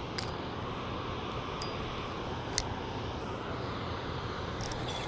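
Steady low background rumble with a faint hum, broken by a few short, faint clicks.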